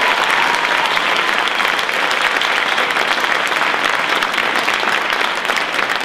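Audience applauding at the end of a song, a dense and steady clapping.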